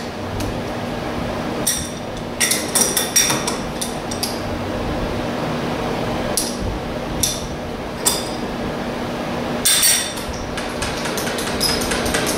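Sharp metallic clinks and taps of steel tooling being handled and adjusted at a metal lathe, bunched around two to three seconds in and again near the end, over a steady low hum.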